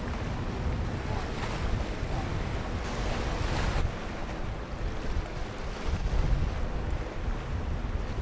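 Wind buffeting the microphone over choppy water splashing against the passing steel hull of a lake freighter, with a brief louder rush about three seconds in.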